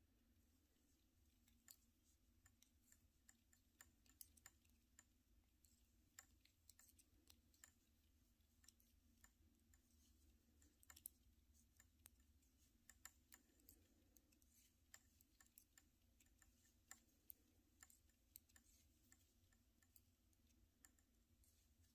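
Faint, irregular clicking of size 7 metal knitting needles tapping together as stitches are knit along a row, over a low steady room hum.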